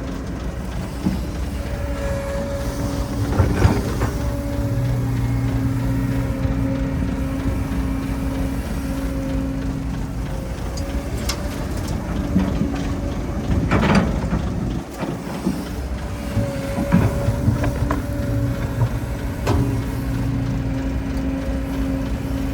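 Heavy diesel construction machinery running steadily, with a held engine tone that rises and falls slightly. Occasional sharp clanks and knocks, four or so, come from the machine working.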